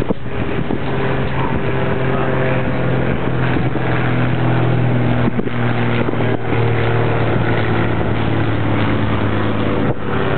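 A steady motor hum, holding one pitch, under a continuous rushing noise.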